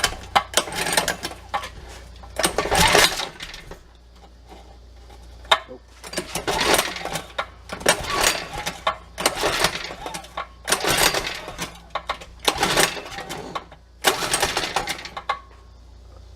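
Small 97 cc mini bike engine being pull-started with the choke on: repeated yanks of the recoil starter cord, each spinning the engine over briefly, about one every one to two seconds, without it settling into a steady run.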